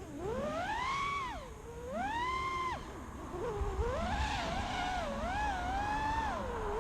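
FPV racing quadcopter's electric motors whining, the pitch swooping up and down sharply twice with the throttle, then holding higher and wavering from about four seconds in.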